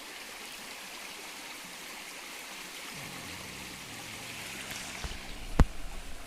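Steady rush of flowing stream water below a waterfall, with a single sharp knock near the end.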